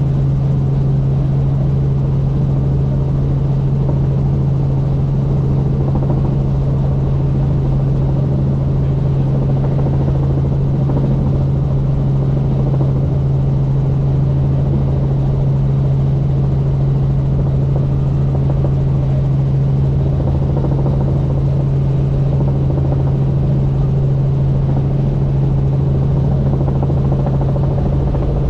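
Helicopter in flight, a steady unchanging drone with a strong low hum.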